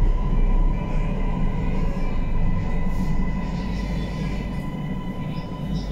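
Siemens Inspiro metro train heard from inside its front car, slowing into an underground station: a steady rumble of wheels on rail with a thin, steady whine, growing gradually quieter as the train brakes.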